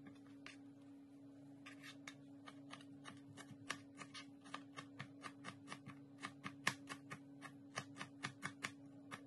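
Quick, light cutting clicks in food preparation, about two to three a second, growing louder after the first second or so. A steady low hum runs underneath.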